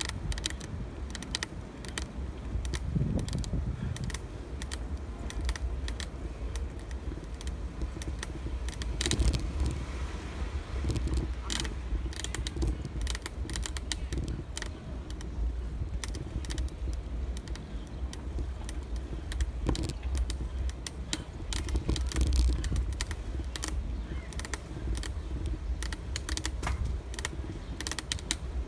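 Bicycle rolling over city asphalt: irregular mechanical clicking and rattling from the bike, over a steady low rumble of wind on the microphone.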